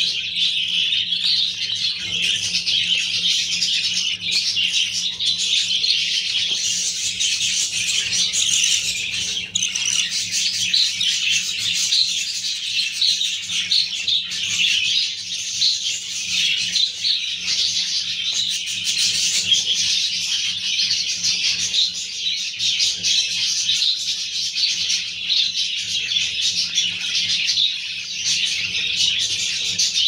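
Budgerigars chirping and chattering continuously, many high chirps overlapping with no break. A faint steady low hum runs underneath.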